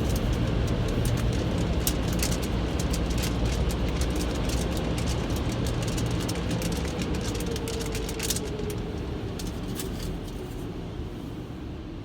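Car wash running: a steady machine rumble and hum under spraying water, with scattered sharp ticks. It fades out slowly toward the end.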